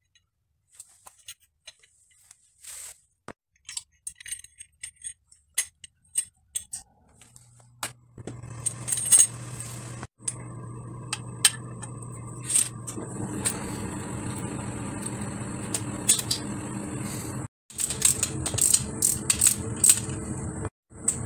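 Old mountain bike suspension fork being taken apart and handled by hand: metal stanchion tubes and fork parts clinking, tapping and clicking in scattered small knocks. Partway through, a steady low hum comes in under the handling.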